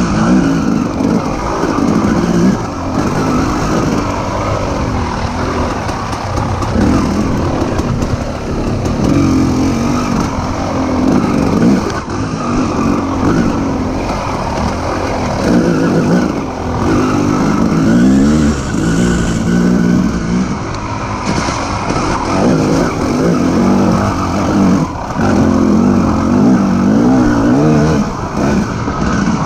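Dirt bike engine racing over an off-road course, its revs rising and falling over and over as the throttle is opened and closed, about every second or two.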